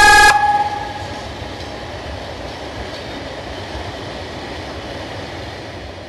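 The Pavian CAR electronic siren's loud steady tone cuts off about a third of a second in, with a brief ring-out, leaving the steady rumble of a freight train passing nearby, which starts to fade near the end.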